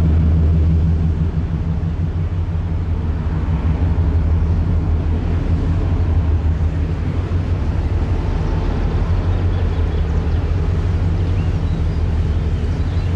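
Cruise ship's engines and funnel exhaust passing directly below, a steady low rumble that eases slightly about a second in.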